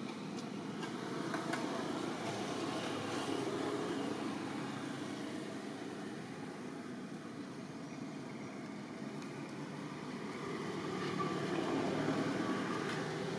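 Steady outdoor background noise with no clear tone, swelling about a second in and again near the end.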